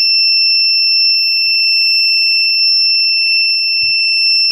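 Small electronic buzzer sounding one loud, steady, high-pitched beep that cuts off suddenly near the end, with a few faint handling knocks under it.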